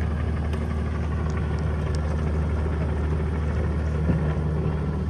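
Engine of a small earthmoving machine running steadily, with a single brief knock about four seconds in.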